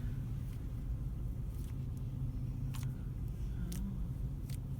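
Steady low engine rumble, with a few faint, scattered clicks.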